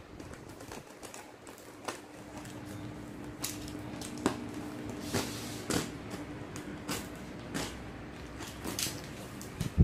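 Small knife blade slitting and scraping through packing tape along a cardboard box's seam: a string of irregular scratches and ticks.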